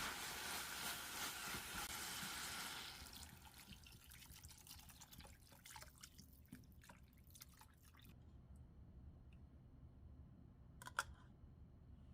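Water running from a kitchen tap for about three seconds, then stopping, followed by faint clicks and knocks of kitchen handling, with one sharper click near the end.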